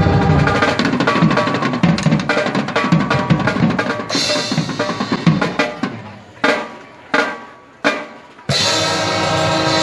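Marching band playing, with snare and bass drums driving a fast rhythm under brass chords. About six seconds in, the band breaks into three short, separated accented hits, then comes back in on a full held brass chord near the end.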